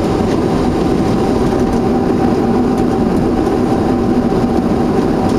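Steady cabin noise of a Boeing 737-300 taxiing, its CFM56-3 jet engines running at low thrust: an even hum with a couple of held tones.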